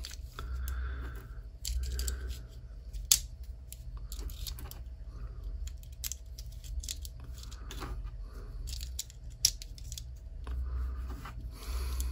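Small metallic clicks and rattles of .22 rimfire cartridges being dropped one at a time into a Ruger Standard pistol's magazine and shaken to settle in it, with two sharper clicks about three seconds in and near the end.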